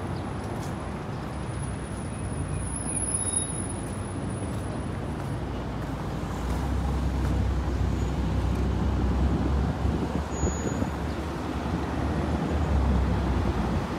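Steady road traffic noise from passing cars and vans, growing louder with a deeper rumble about six seconds in.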